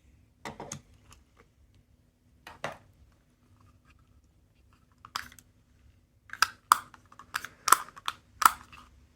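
Small plastic clicks and clacks from handling plastic capsule toys: a few scattered clicks, then a quicker run of about a dozen near the end.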